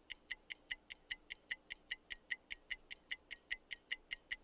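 Clock-like ticking sound effect of a quiz countdown timer, steady at about five sharp ticks a second.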